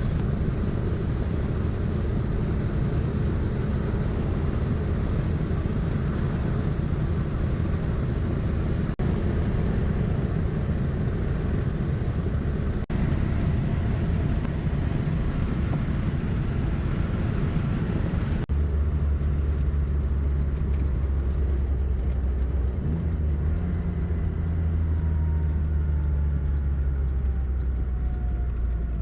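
Morris 1100 S's small A-series four-cylinder engine and road noise, cruising steadily at highway speed. About two-thirds of the way through, the sound changes abruptly to a deeper, steadier engine drone with less road hiss.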